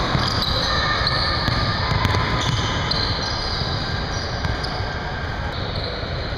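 A basketball dribbling on a hardwood gym floor amid players' sneakers squeaking and scuffing, with short high squeaks coming and going over the steady hum of a large hall.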